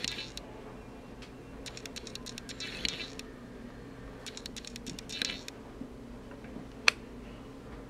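Runs of rapid light clicking, two of them lasting over a second each, then one sharp click near the end, over a faint steady hum.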